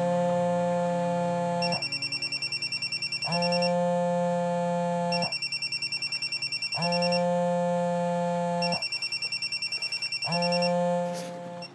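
Mobile phone ringing with an electronic ringtone: a steady held tone alternates with a fast, high warbling trill, each about a second and a half long, four times over. The ringing cuts off near the end.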